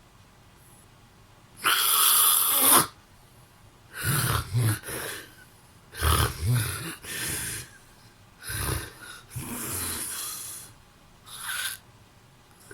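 A man snoring in his sleep. A loud, breathy snore comes about two seconds in. Then about five more snores of uneven length follow, with a low fluttering rattle, separated by short quiet pauses.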